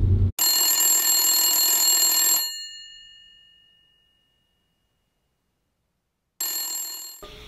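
Phone call ringing. A bell-like ringtone sounds for about two seconds and fades out, then after a few seconds of silence a second ring starts near the end and is cut short.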